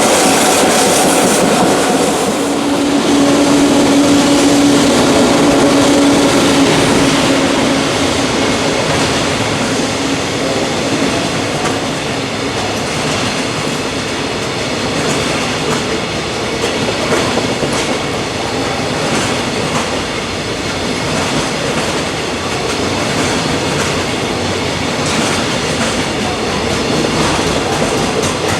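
JR Freight container train running past, its wheels clattering over the rails in a dense, steady rumble. A steady hum sounds through the first several seconds, then fades slightly.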